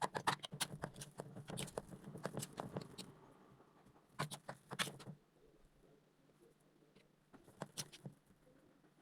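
Kitchen utensils clicking and tapping in quick runs while food is prepared: a dense run for about three seconds, another burst about four seconds in, and a few more taps near the end.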